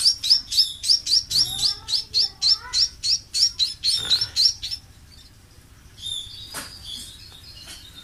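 A hand-fed nestling songbird begging for food: a fast run of high, repeated chirps, about five a second, that stops about four and a half seconds in, followed by a few softer chirps.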